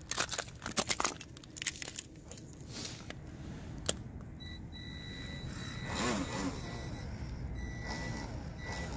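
Loose ice clicking and crackling for the first two seconds. Then a thin, steady, high whine from the RC airboat's electric motor and propeller, which cuts in and out now and then.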